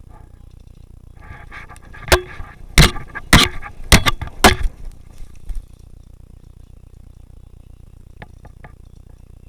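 Airsoft guns firing a string of single shots: about eight sharp cracks, some in close pairs, irregularly spaced about half a second apart. A few faint clicks follow near the end.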